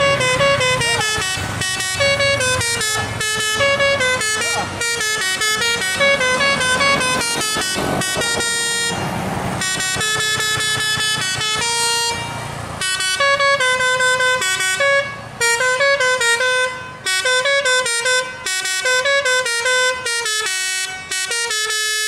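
Telolet musical air horn on a Dinasty tour bus playing a fast, tuneful melody of many short notes, breaking into shorter phrases with brief gaps in the second half.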